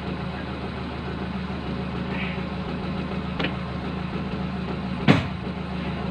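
Hitachi Zaxis 135 excavator's diesel engine idling steadily, with one sharp metallic clank about five seconds in and a lighter tick a little before it, from a tool worked against the steel boom.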